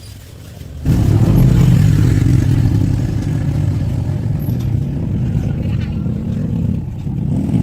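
A motor vehicle engine comes in abruptly about a second in and then runs steadily with a low, even drone.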